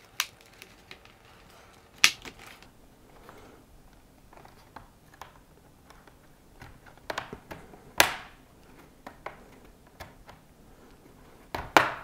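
Plastic clips of an Asus ROG Strix SCAR II laptop's bottom panel snapping loose as a thin pry tool is worked around the seam. It sounds as several sharp clicks a few seconds apart, the loudest about two seconds in and about eight seconds in, with faint handling in between.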